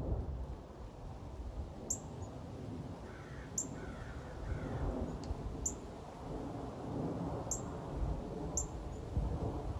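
American crow cawing three times, about three to five seconds in, and a small bird giving short high chirps every second or two, over the steady low rumble of a jet airliner flying high overhead.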